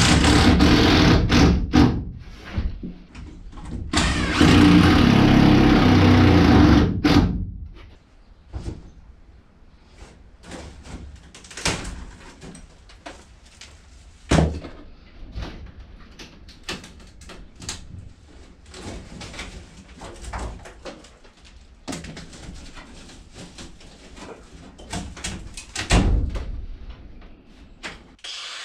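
Cordless power drill running under load in two bursts, the second about three seconds long, working into wood framing. Then quieter scattered clicks and knocks of tools and wood being handled, with one sharper knock near the end.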